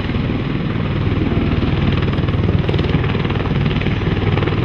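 Bell Boeing V-22 Osprey tiltrotor flying with its nacelles up in helicopter mode, its two proprotors and turboshaft engines running loud and steady with a rapid, even beating.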